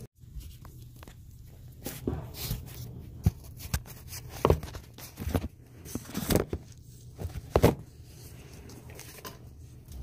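Irregular knocks, taps and rustles of handling, with a handful of sharp knocks between about two and eight seconds in, over a low steady hum.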